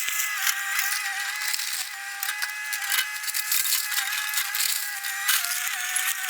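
Fast-forwarded audio of an excavator demolishing a house: the engine drone is raised to a high, nearly steady whine by the speed-up, with quick rattling and crunching of debris.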